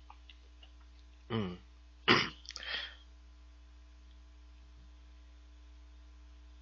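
A man's two short wordless vocal sounds, a brief one about a second in and a louder one around two seconds that trails off, over a steady low electrical hum.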